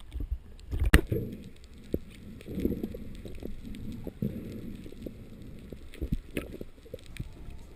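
Muffled water noise and irregular knocks and clicks heard through an underwater camera housing as a freediver goes under and fin-kicks; the loudest knock comes about a second in.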